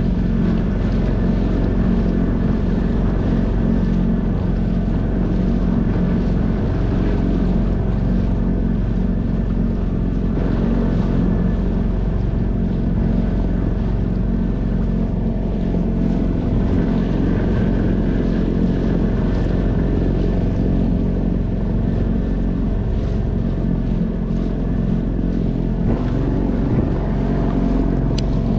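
Small outboard motor running at a steady speed, pushing an inflatable boat along, with water splashing along the rubber hull.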